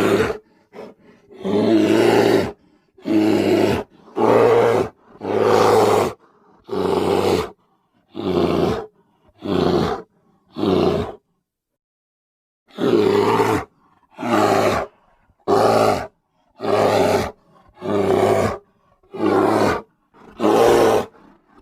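Grizzly bear roaring: a run of short, deep roars about one a second, with a pause of about two seconds midway.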